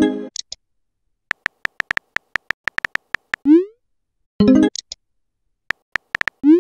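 Texting-app sound effects. About a second in, a run of a dozen quick keyboard tap clicks ends on a short rising pop as the message is sent. Then a bright synthesized chime rings and fades, then a few more taps, and another rising send pop near the end.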